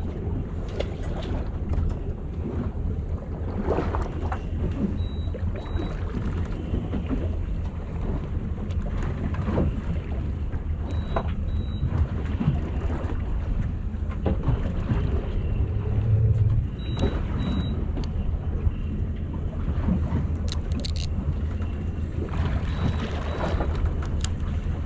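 A boat's engine running steadily, under a haze of wind noise. Short paired high beeps come about every six seconds, with a few knocks.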